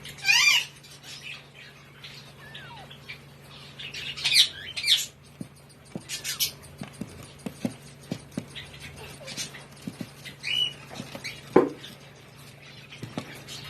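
Month-old Alexandrine parakeet chicks giving short, harsh, high-pitched squawks in several bouts, the loudest about half a second in and again around four to five seconds in. Scattered light taps and scratches run between the calls.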